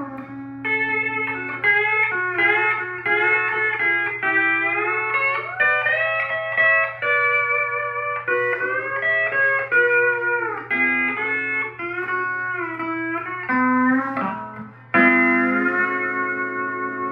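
E9 pedal steel guitar played with the A pedal down: a jazzy, bluesy run of 6th chords and single notes with sliding pitch bends. About fifteen seconds in it stops briefly, then a chord is struck and left to ring. A steady low hum sits underneath.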